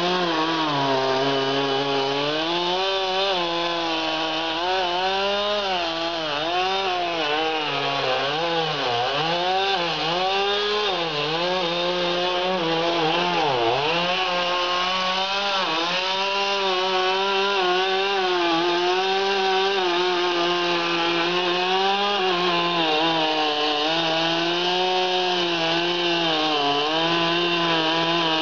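Chainsaw cutting through a thick ash trunk, the engine held near full throttle while its pitch repeatedly sags and recovers as the chain bites into the wood, dipping deepest twice in the first half.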